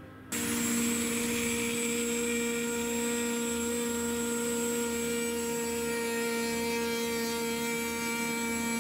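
6012 CNC router spindle milling the top face of a railroad sleeper: a steady whine with the hiss of the cutter shaving the wood, starting suddenly just after the start.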